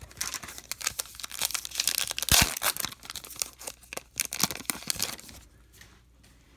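A baseball card pack's foil wrapper being torn open and crinkled, a dense crackle of tearing and rustling that is loudest about two and a half seconds in and stops about five seconds in.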